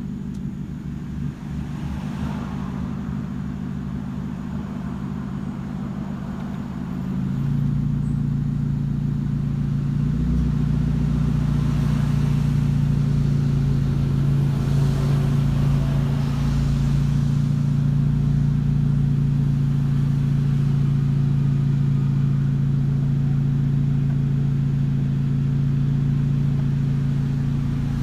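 Chevrolet Spark's four-cylinder engine running evenly after new spark plugs cured its misfire. About seven seconds in it steps up to a louder, faster steady speed and holds there.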